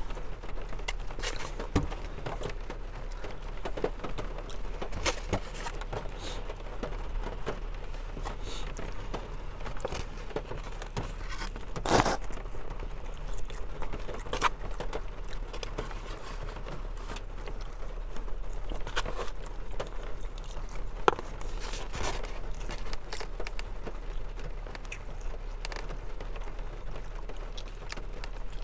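Eating from a styrofoam takeout container: a plastic fork scraping and clicking against the foam, with chewing. Scattered short clicks and scrapes, the loudest about twelve seconds in.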